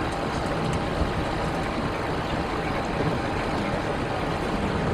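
Steady rush and low hum inside an airliner's cockpit as it taxis after landing, engines at idle, with one light bump about a second in.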